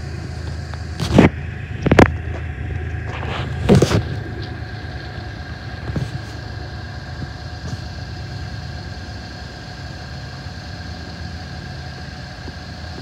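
Steady low engine hum, with a few short sharp bumps in the first few seconds.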